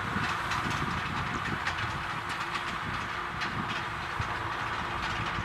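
Kubota M6040SU tractor's four-cylinder diesel engine running steadily under load, pulling a rotary tiller through dry, sandy ground, with irregular clattering and knocks from the implement.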